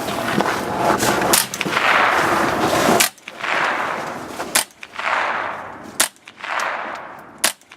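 Suppressed .22 firing supersonic rounds: about five shots roughly a second and a half apart, each a sharp crack with a fading tail. The supersonic crack of the bullet is still heard through the suppressor; it is not silent.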